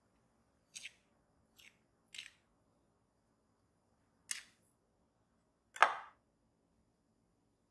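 A metal fork scraping through cinnamon sugar against a ceramic bowl as it rolls a dough ball: five short scrapes, the last one near the end the loudest.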